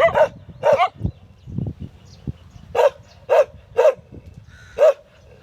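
A dog barking in short, sharp barks: two near the start, a pause of about two seconds, then three in quick succession and one more shortly after.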